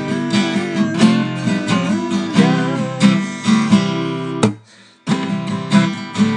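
Acoustic guitar strummed in a steady rhythm, with a long sung note wavering in pitch over the first few seconds. The strumming stops briefly about two-thirds of the way through, then starts again.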